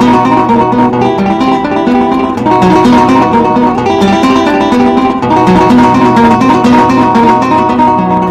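Background music: acoustic guitar playing a quick run of plucked notes, in a flamenco style.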